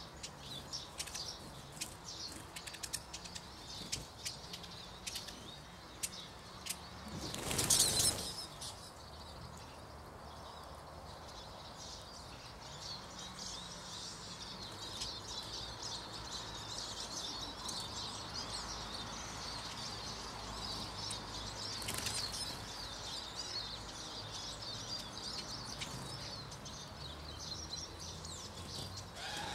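Small finches, mainly Eurasian siskins, at a bird table: scattered light ticks, then a brief loud flurry of wingbeats about eight seconds in, after which a steady high twittering chatter runs on.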